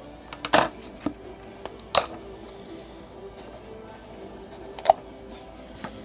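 Hands handling a cardboard mailer and plastic card holders: a few short rustles and clicks, the loudest about half a second in, at two seconds and near five seconds, over faint background music.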